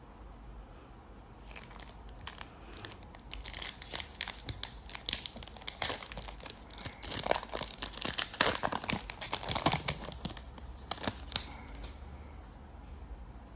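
Foil wrapper of a Bowman Chrome football card pack crinkling and tearing as the pack is ripped open, a dense run of sharp crackles starting about a second in and stopping a couple of seconds before the end.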